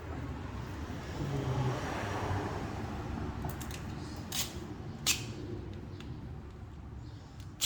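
Gorilla Tape being pulled off its roll with a rasping noise, then a few sharp snaps as a fresh piece is freed.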